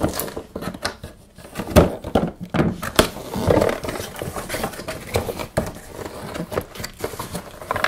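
A cardboard box being opened by hand: its flaps pulled back and scraping, with irregular knocks and rustling of the cardboard.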